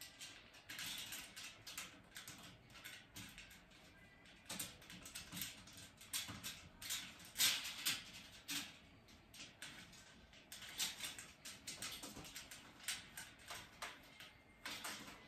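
Metal trolley leg being twisted by hand into its threaded joint on the mesh-shelf frame: irregular scraping and clicking of metal on metal.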